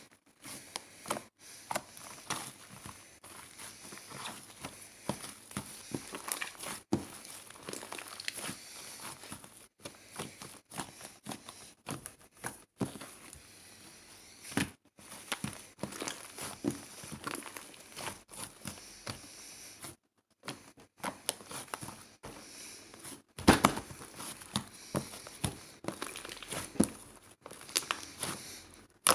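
Irregular crinkling and rustling with many scattered small clicks and taps, and one louder knock about two-thirds of the way through.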